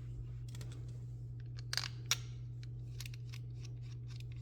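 Light plastic clicks and handling noises as a thick power cord is slid into a clip-on current sensor's housing, with two sharper clicks near the middle, over a steady low hum.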